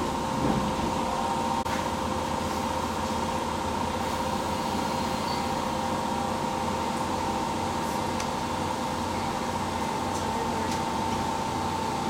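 Stationary electric train car's auxiliary equipment humming steadily, with a thin steady whine over a low rumble while the train stands at the platform.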